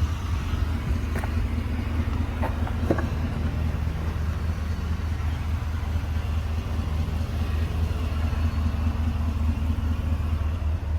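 An engine idling with a steady low rumble, a few faint clicks in the first few seconds.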